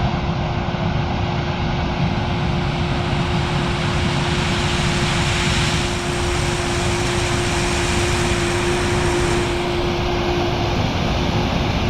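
Combine harvester running steadily in corn, a loud even machine drone with a constant whine through it.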